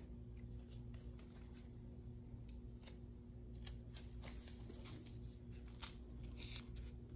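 Faint scattered clicks and light handling noises from small plastic and electronic parts being handled during the screen swap, over a steady low hum.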